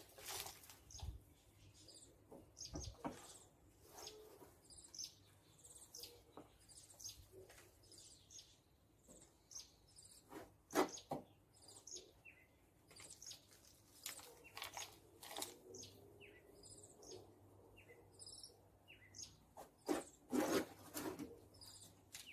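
Small birds chirping on and off in the background, with intermittent rustling and scraping of potting soil being scooped by hand into a pot; the loudest rustles come about halfway through and near the end.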